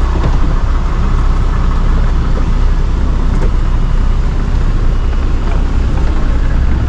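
Steady, loud low engine rumble with an even hiss of noise over it, as heard while riding in a running vehicle.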